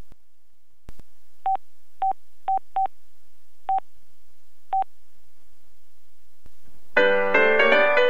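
LG Voyager VX10000 phone's key beeps: six short beeps at one pitch, spaced unevenly over about three seconds, from navigating the ringtone menu, with a faint click before and after. About seven seconds in, the next built-in ringtone starts, a piano-like melody.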